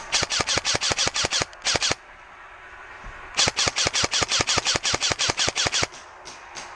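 Airsoft gun firing on full auto: a rapid string of sharp cracks, about eight shots a second, for about two seconds, a short pause, then another long burst of about two and a half seconds.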